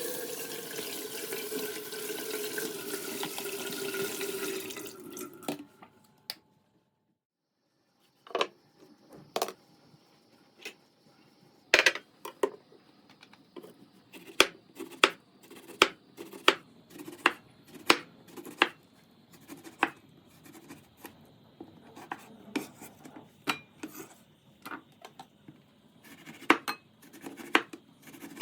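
A steady rush of running water that stops about five seconds in. After a short pause come many light clinks of cutlery against dishes and glass, spaced irregularly.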